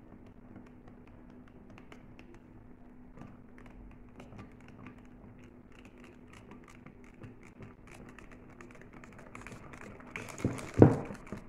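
Hand wire whisk beating chocolate cake batter in a glass bowl: quick, light clicks of the wires against the glass. A louder knock comes about a second before the end.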